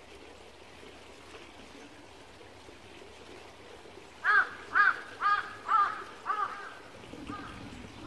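A crow cawing: a quick run of five loud caws about two a second starting about halfway through, then a few fainter caws near the end. A small stream trickles steadily underneath.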